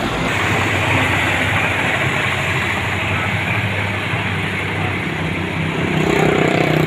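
Heavy road-construction machinery engines running steadily with a mechanical hiss above. About six seconds in, a stronger engine note comes up and grows louder.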